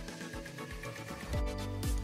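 Background music of held, sustained chords, with a low drum beat coming in about halfway through at roughly two beats a second.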